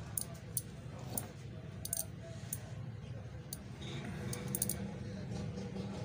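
Scattered light clicks and ticks at an irregular pace from handling a small relay module and its loose jumper wires, over a steady low hum.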